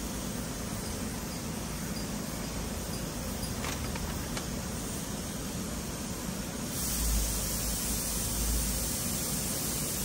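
Gravity-feed paint spray gun hissing steadily as it sprays paint onto a masked brake caliper. About seven seconds in, the hiss gets louder and brighter, with a stronger low rumble under it.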